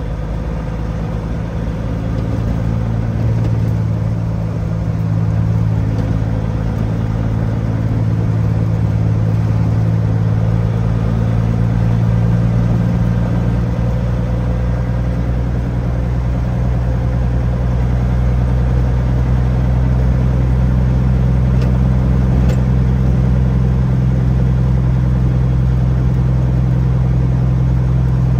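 Peterbilt 379 semi truck's diesel engine running steadily with a low drone, growing a little louder over the first several seconds and then holding even.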